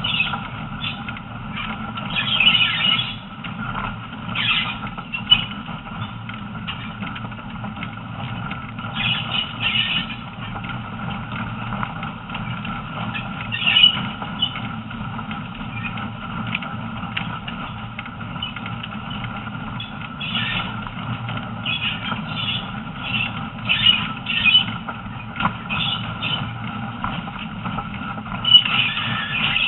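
Train running on forest track, heard from on board: a steady rumble of wheels on rail with short, high squeals that come and go every few seconds, typical of wheel flanges grinding on a curve.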